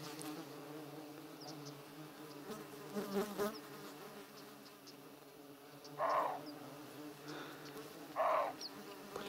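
Flying insects buzzing steadily close to the microphone, a continuous droning hum. Two short, louder sounds stand out about six and eight seconds in.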